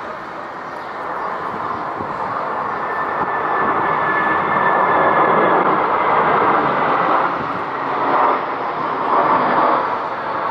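Twin jet engines of a Nepal Airlines Airbus A320 on final approach with gear down: a steady rushing jet noise with a thin high whine in it. It grows louder over the first half as the airliner closes in.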